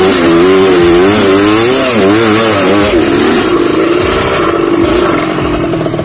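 Underbone motorcycle engine revving up and down in quick blips, then running at a steadier, slightly falling speed in the last few seconds.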